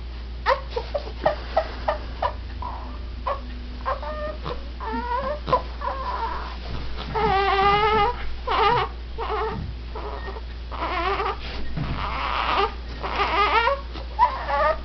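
A string of high-pitched, wavering squeals and whimpering calls, broken by short sharp clicks; these are the funny noises Neil has started making.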